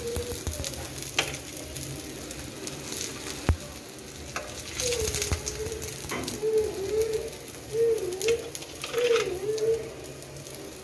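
Oil sizzling steadily in a frying pan around egg-coated beef-and-potato kababs, with a few sharp clicks of a metal spatula against the pan. From about five seconds in, several short, wavering low-pitched calls sound over the sizzle.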